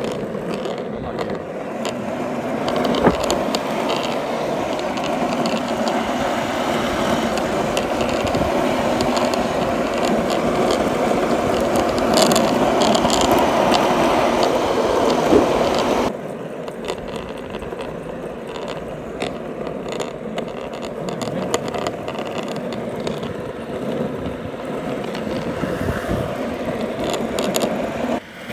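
Skateboard wheels rolling steadily over street asphalt, with scattered clicks from bumps and cracks in the road. The rolling is louder in the first half and drops suddenly in level about halfway through, then continues.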